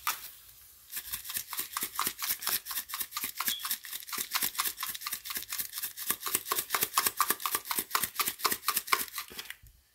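Onion powder shaken rapidly from a plastic spice shaker bottle: a steady run of light rattling taps, about seven a second, starting about a second in and stopping just before the end.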